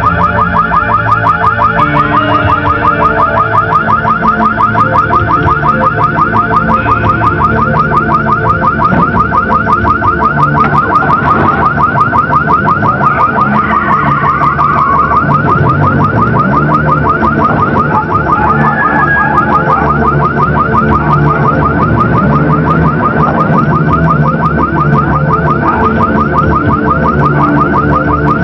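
Electronic alarm siren sounding continuously, a fast, evenly repeating warble that never stops, with steadier low tones beneath it.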